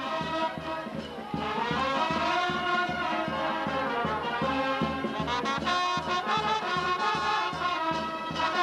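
Traditional Andean dance music played by a band, wind instruments carrying the melody over a steady beat.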